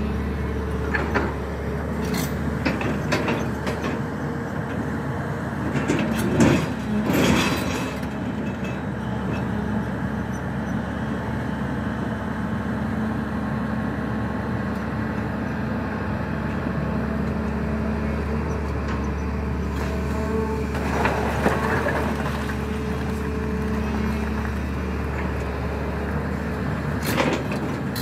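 SANY crawler excavator's diesel engine running steadily as the machine works its boom and bucket, with a few clanks and knocks: a loud cluster about seven seconds in, more around twenty-one seconds, and again near the end.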